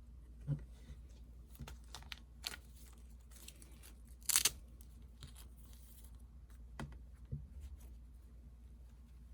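Packaging being handled and torn open: scattered rustles and light clicks, with one short, louder tear about four seconds in.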